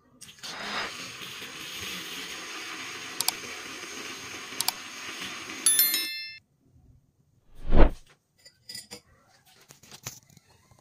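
Small 3-volt DC motor of a homemade battery milk frother whirring steadily as its wire whisk spins in a glass mug of coffee, with a few light ticks; it stops about six seconds in with a brief ringing clink of metal on glass. A single thump follows a couple of seconds later, then a few faint clicks.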